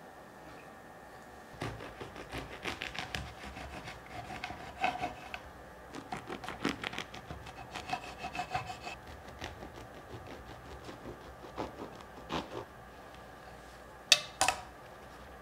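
A knife sawing through a crusty baguette on a wooden cutting board: a run of rasping back-and-forth strokes from about a second and a half in, fading to a few lighter scrapes, then two sharp knocks near the end.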